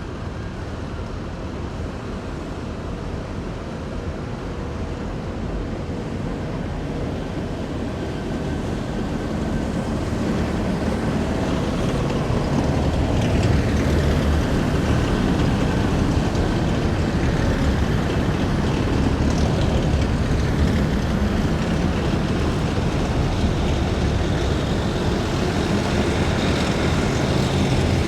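Military vehicles of a parade column driving past on a city street, their heavy engines rumbling. The noise builds over the first half as the vehicles come nearer, then stays loud.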